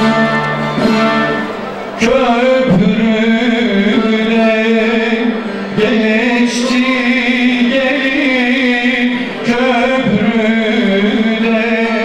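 Turkish folk music: a bağlama (long-necked saz) playing, joined about two seconds in by a man singing long held notes that waver in pitch.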